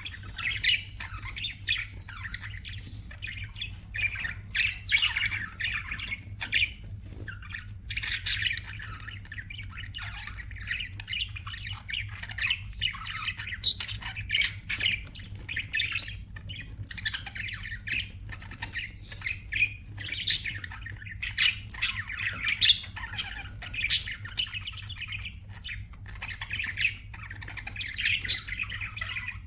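Budgerigars chattering: a dense, unbroken run of warbling chirps with sharp squawks scattered through, over a faint steady low hum.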